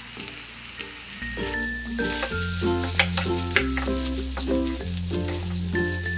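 Cutlet mixture of mashed potato, carrot, peas and bread crumbs sizzling in a frying pan while a wooden spatula stirs and mashes it. Background music with a steady bass line and a light melody comes in about a second in and plays over the sizzling.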